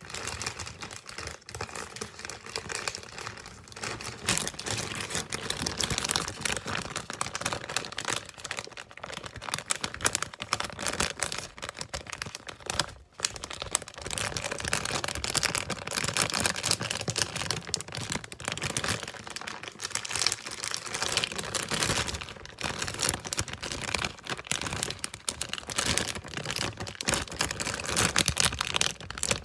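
Thin plastic packaging bag crinkling and rustling as it is handled right against the microphone, with dense crackles throughout and a brief pause about halfway through.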